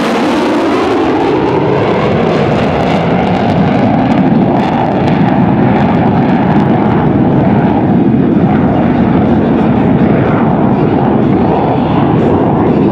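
F-104 Starfighter's General Electric J79 turbojet in afterburner as the jet climbs steeply away: loud, steady jet noise. The high hiss drops away after about the first second, leaving a deep rumble.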